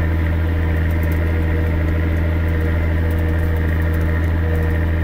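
Massey Ferguson 6280 tractor's diesel engine running steadily under load, pulling a plough through the soil; a constant low drone.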